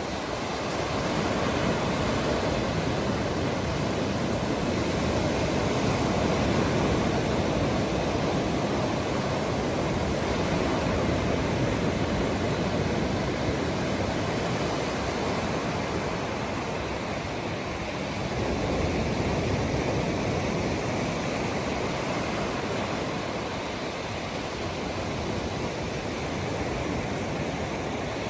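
Steady rushing noise of sea surf and wind, slowly swelling and easing.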